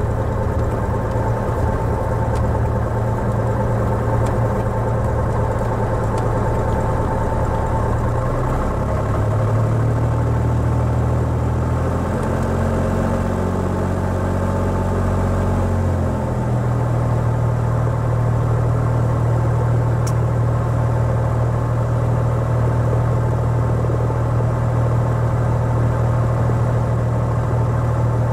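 A Cessna 175 Skylark's piston engine and propeller running at low power, heard from inside the cabin as a steady drone. The engine note shifts a few times about a third of the way in, then settles again.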